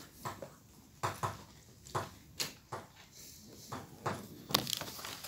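Chalk tapping and scratching on a blackboard as words are written: about ten short, irregular knocks, the strongest near the end.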